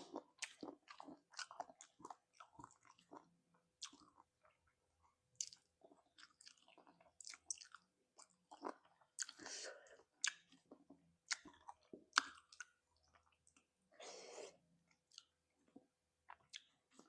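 Close-up chewing and biting of spicy chicken feet: irregular wet mouth clicks and smacks, with two longer noisy stretches about nine and fourteen seconds in.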